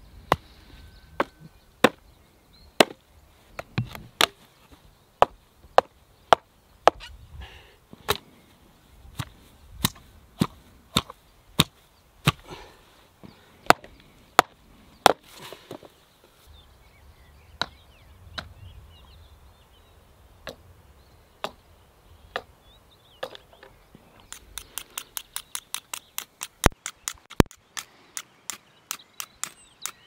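Hatchet chopping and splitting kindling on a wooden block: sharp, irregular chops about once a second, thinning out about halfway through. Near the end comes a quick, even run of ticks, about five a second.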